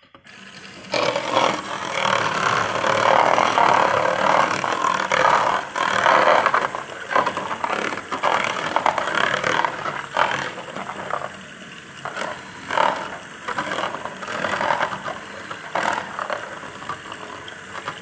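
Two small LEGO WeDo 2.0 motors start up about half a second in, switched on by a hand over the motion sensor, and run, their LEGO beaters rattling and scraping through cocoa powder in a plastic plate. The noise is loud and uneven throughout.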